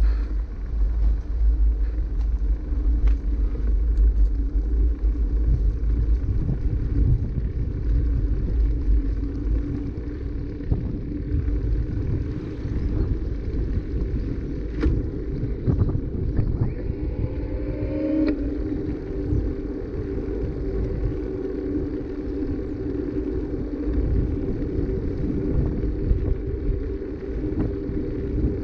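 Steady low rumble of a bicycle ride filmed on a moving camera: wind on the microphone and tyres rolling over an asphalt path. A short rising whine a little past halfway.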